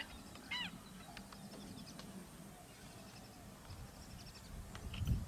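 Wild birds calling: a honking call with a ringing, arched tone about half a second in, and short sharp chirps scattered throughout. A low rumble comes in near the end.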